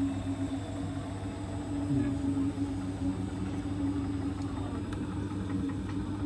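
Hotpoint WT761 Ultima washing machine running during its rinse and spin programme, its motor giving a steady whine over a low hum.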